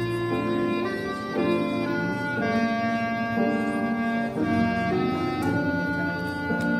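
Clarinet playing a slow melody of held notes, accompanied by grand piano.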